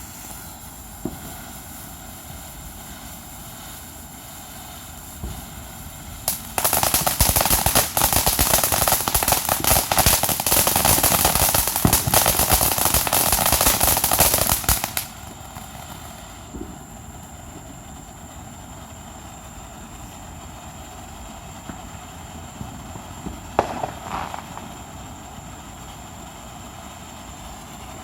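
Consumer firework cake going off: a few scattered pops, then about eight seconds of dense, loud crackling, then a few more single pops.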